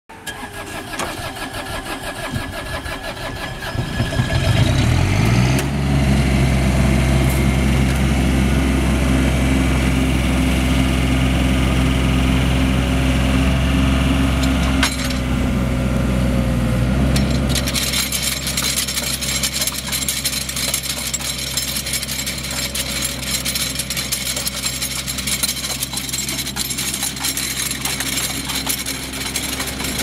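Bobcat walk-behind mini track loader's engine running, revving up about four seconds in and holding steady at high speed while it drives the 38-inch hydraulic rotary tiller. About two thirds of the way through, the engine note drops away and a steady rattling hiss from the turning tiller takes over.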